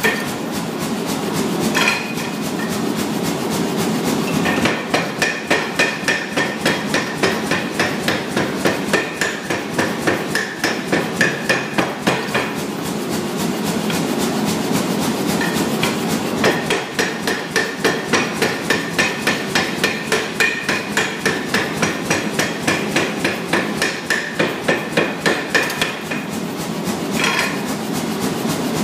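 Steady, rapid hammer blows forging a 60 mm round steel bar, keeping a quick regular rhythm with brief breaks every few seconds.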